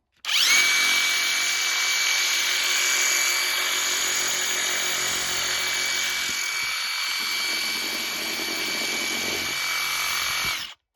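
RIDGID R872081 18V brushless subcompact impact wrench spinning free with no load at speed 3: a steady high whine that runs for about ten seconds and then stops abruptly near the end, with no hammering.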